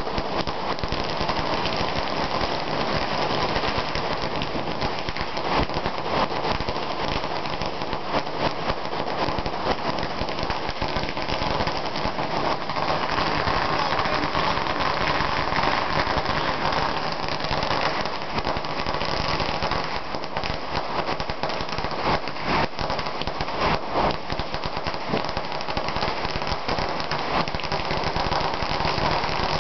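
A long string of firecrackers (a 10,000-cracker ladi) going off in a dense, unbroken rattle of rapid small bangs.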